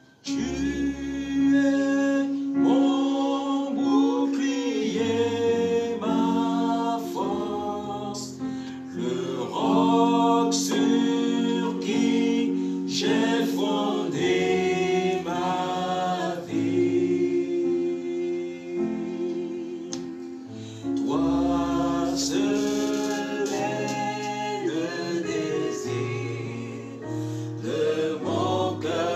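A small group of men and women singing a gospel worship song together, accompanied by guitar.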